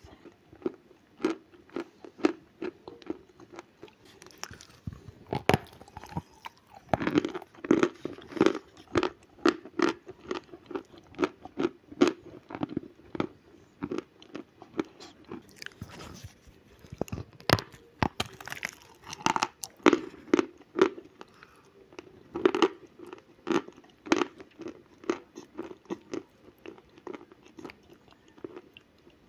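Natural chalk crunched and chewed close to the mouth: sharp, irregular crunches as it is bitten and ground between the teeth, over a steadier chewing sound.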